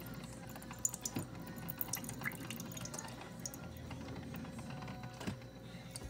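Galanz 2-in-1 espresso machine and single-serve coffee maker dispensing into a mug: liquid trickling and dripping into the cup over a steady machine hum.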